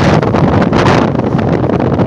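Heavy wind buffeting the microphone, a loud, gusty rush that surges in the first second and eases a little after.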